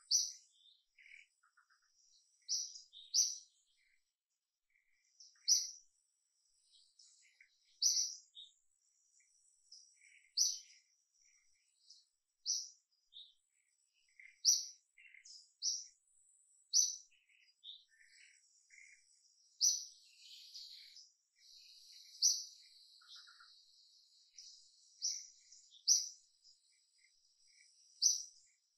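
Small birds chirping: a sharp, high chirp repeated every two to three seconds, with fainter twittering between, over a faint steady high hiss.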